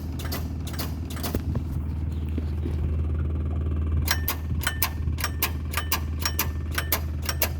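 Toro Workman's starter solenoid clicking rapidly, about four clicks a second, without the engine cranking: the no-start fault, which the mechanic puts down to a solenoid problem. A steady low hum runs underneath.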